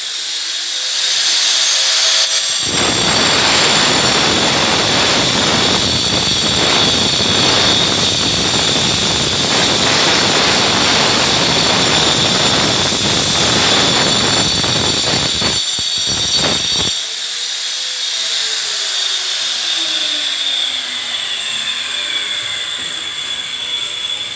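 Electric angle grinder cutting into a masonry wall: a loud, rough grinding over a steady high whine from about two and a half seconds in, with a short break near the end of the cut. After about seventeen seconds the disc comes off the wall and the grinder runs quieter, its pitch slowly falling.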